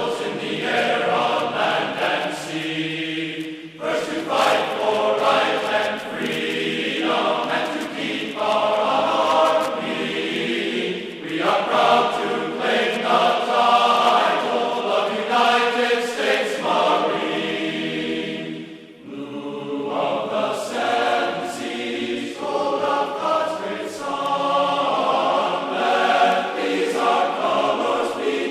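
Background music carried by a choir singing sustained phrases, each about one to two seconds long.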